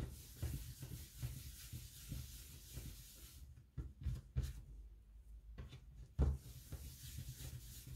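Hands rolling soft dough balls on a worktop and setting them down: faint rubbing with a few soft thumps, the loudest just after six seconds in.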